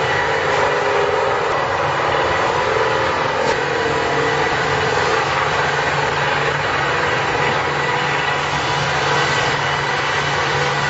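Log sawmill machine running steadily, its motor and saw giving a constant mechanical drone.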